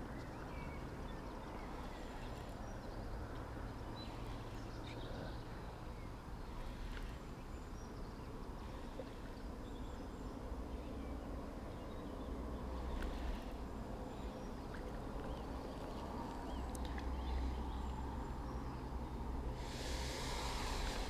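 Outdoor background at a lakeside: a low steady rumble with faint scattered bird chirps and small clicks, and a short rustle near the end.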